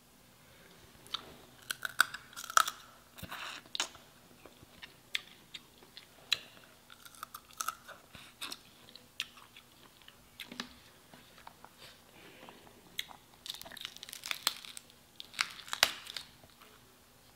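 Crab and shrimp shells cracking and clicking as they are picked apart by hand, with chewing between. Short, sharp cracks come in irregular flurries, busiest a couple of seconds in and again near the end.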